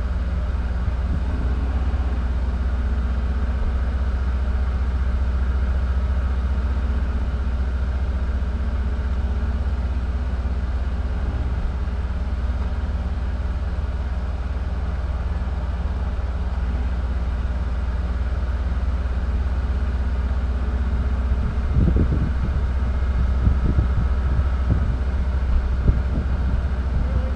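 Vehicle engine idling, heard from inside the parked vehicle's cab as a steady low hum. A few brief low thumps come near the end.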